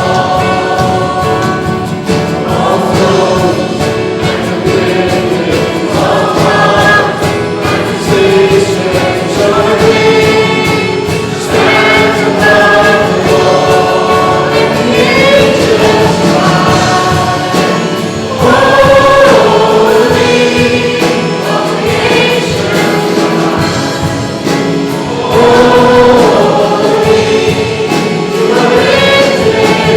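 Congregation singing a hymn with instrumental accompaniment, in phrases with short breaks between them.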